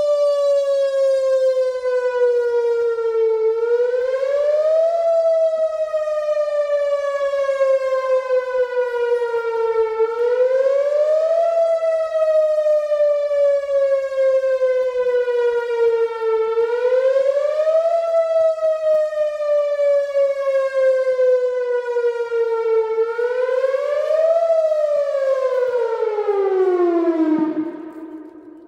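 A siren wailing: its pitch slides slowly down and then climbs quickly, about every six and a half seconds, four times over. Near the end it winds down, falling steadily in pitch and fading out.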